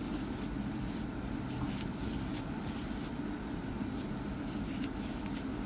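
Steady low background hum with faint, irregular light clicks and rustles of a crochet hook working cotton yarn.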